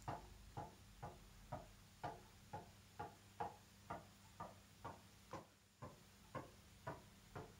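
A tennis ball tapped up over and over off the strings of a tennis racket held backhand-side up, kept in the air without a bounce. The taps are faint, short and evenly spaced, about two a second.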